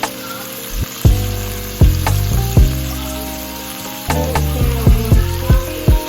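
Background music with a beat and sustained bass notes, over a steady hiss of food sizzling in a frying pan.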